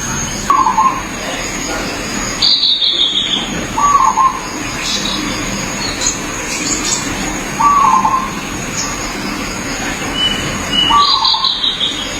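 Zebra dove (perkutut) cooing in short phrases, one about every three to four seconds. Other birds chirp twice in the background over a steady high-pitched tone.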